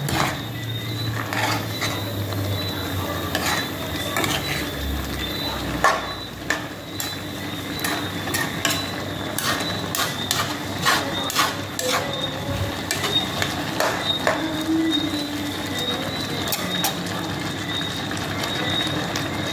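Metal spoon stirring diced coconut in a pan, scraping and clinking against the metal in irregular clicks, thickest through the middle of the stretch.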